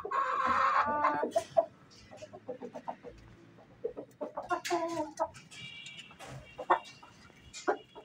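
Aseel chickens clucking: a loud call in the first second, then scattered short clucks and clicks.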